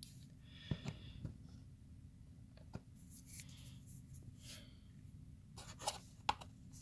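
Faint handling noise as a rubber-jacketed power cord is pushed and worked into a plastic vacuum cleaner housing: soft scraping and rubbing with a few light clicks spread through.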